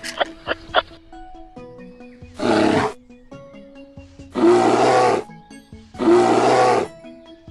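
A bear growling three times, each call under a second long and the second and third the loudest, over light background music.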